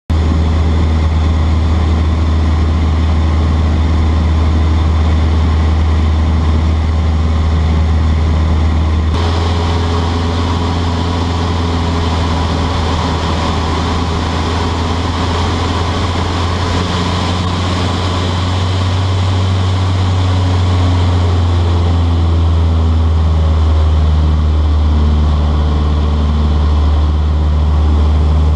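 Engine and propeller noise of a light single-engine plane heard inside the cockpit: a loud, steady drone with a deep hum. The sound changes abruptly about a third of the way in, and the engine note shifts in pitch later on as the plane dives and pulls up into a loop.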